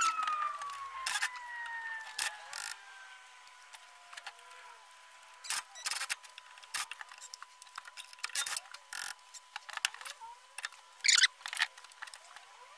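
A bench grinder winding down, its whine falling steadily in pitch over the first few seconds. Over it come short bursts and sharp metallic clatter from a Makita 18V cordless driver and spanner undoing the fixings of a Ford 100E strut's drum-brake backplate, the loudest a little past halfway and near the end.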